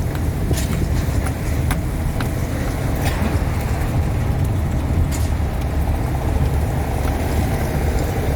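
Truck engine running steadily while driving, heard from inside the cab as a low rumble, with a few light clicks and rattles.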